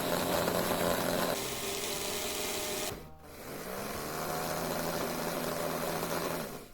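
Small electric motor of a homemade RC car running with a steady whine, dropping off briefly about three seconds in, then spinning up again with rising pitch and cutting off near the end.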